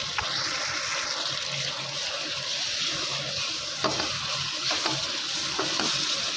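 Thick chicken-and-tomato masala sizzling in a frying pan in its own released oil (the bhuna stage) while a spatula stirs it, a steady hiss, with a few short knocks of the spatula against the pan in the second half.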